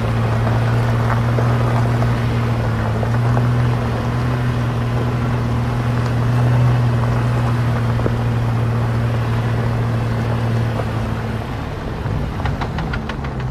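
Jeep Wrangler LJ's 4.0-litre straight-six engine running steadily on the move, a deep, even drone that eases off near the end as the Jeep slows, with a few light clicks.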